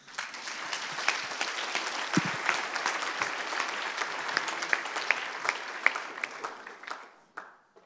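Audience applause: many hands clapping, starting at once and dying away about seven seconds later.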